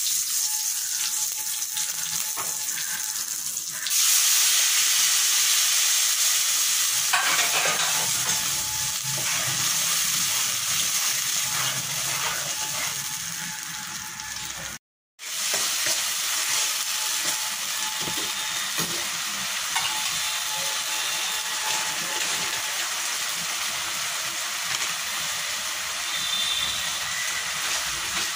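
Food sizzling in hot oil in a kadhai: first whole dried red chillies and bay leaves, then a thick dal mixture frying. The sizzle gets louder about four seconds in, stops for a moment midway, then carries on a little softer.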